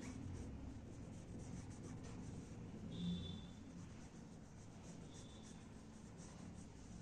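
Felt-tip marker scratching in quick, short back-and-forth strokes on paper, colouring in a shape. A brief faint high chirp sounds about three seconds in, and again near the end.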